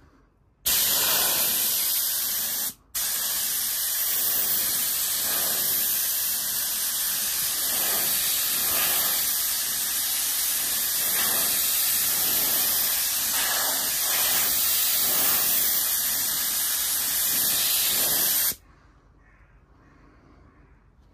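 Gravity-feed air spray gun hissing steadily as it sprays paint. It stops briefly about three seconds in, then sprays on until it cuts off near the end.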